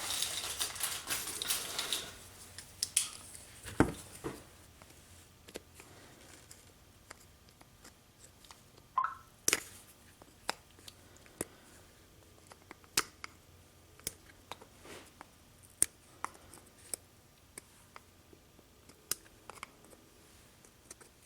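Small scattered clicks and ticks of a knife blade and metal parts being worked at an RC truck's wheel hub to pry a part out, with a scraping hiss in the first two seconds.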